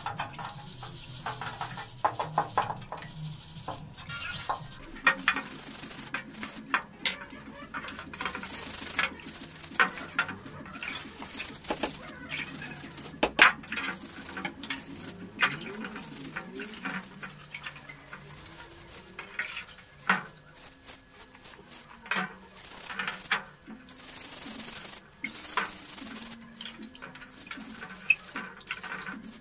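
Scouring pad scrubbing a rusty old axe head dipped in a plastic tub of rust-brown liquid: rasping scrubbing strokes, sloshing and dripping, and sharp clicks and knocks where the iron head hits the tub.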